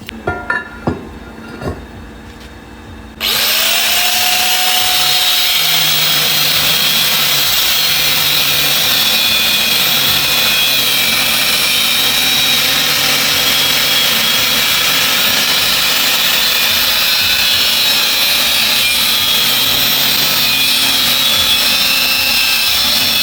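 A few light metallic clinks, then about three seconds in a power tool starts abruptly and runs loudly and steadily, a faint tone rising as it spins up, until it stops suddenly at the end.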